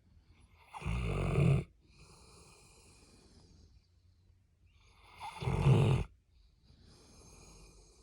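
Old English Labrador retriever snoring in its sleep: two loud rasping snores about four and a half seconds apart, each followed by a softer breath.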